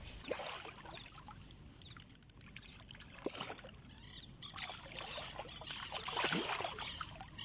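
Irregular rustling and scuffing of footsteps through dry weeds and dirt, with scattered small clicks, louder for a moment about six seconds in.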